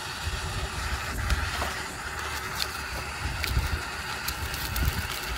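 Extremus gas-canister backpacking stove burning with a steady hiss under a pot, while irregular gusts of wind rumble on the microphone. A few faint ticks and crinkles come from a paper coffee packet being opened.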